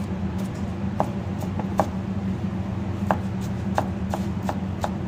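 Kitchen knife chopping white fungus on a plastic cutting board: sharp, uneven taps of the blade hitting the board, about two a second, over a steady low hum.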